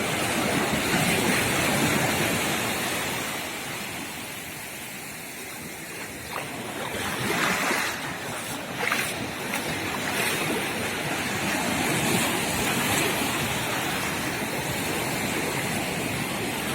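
Atlantic surf washing in and breaking, a steady rush of water that fades for a few seconds and then surges back in about halfway through.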